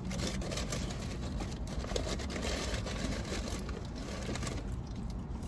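Quiet eating sounds close to the microphone: chewing and handling of fast food, with faint irregular rustles and clicks over a low steady room hum.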